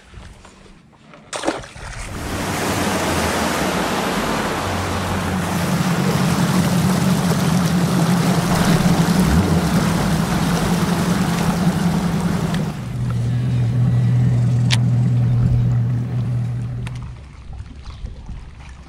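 Bass boat outboard motor running underway, its steady engine hum mixed with a loud rush of wind and water. About two-thirds of the way through the hum drops lower, then the sound dies away as the boat slows.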